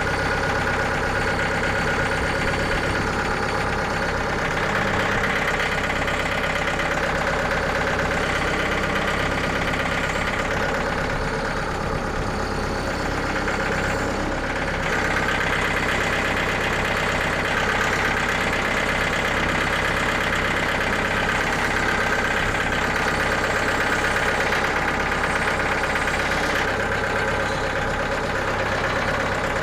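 Frontier OS27 portable band sawmill's engine running steadily.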